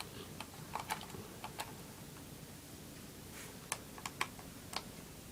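Light, irregular clicks and taps, in two short clusters, from a small screwdriver and tiny screws being worked out of a laptop's base.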